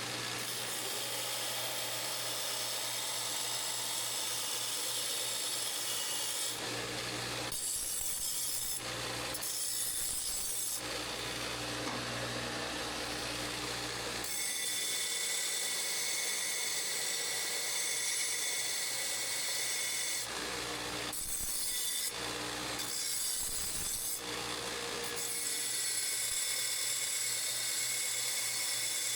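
Bandsaw cutting metal exhaust tubing, a steady grinding rasp that stops briefly several times.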